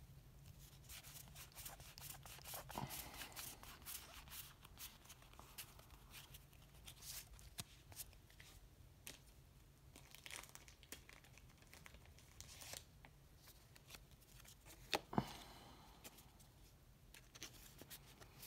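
Faint rustling and sliding of Pokémon trading cards being flipped through by hand, card over card, with small clicks as the edges catch. About fifteen seconds in come two sharper snaps.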